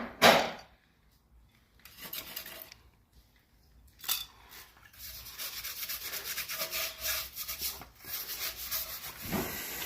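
Hands rubbing and scraping engine parts while cleaning and handling them. A sharp knock comes just after the start, a short scrape about two seconds in and another clack about four seconds in, then steady rough rubbing from about five seconds on.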